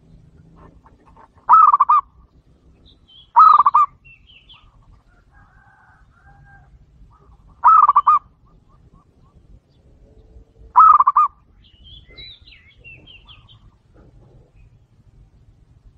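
Zebra dove (perkutut) cooing: four short, rolling, trilled coos, each about half a second, a few seconds apart. Faint high chirps of other small birds come between them.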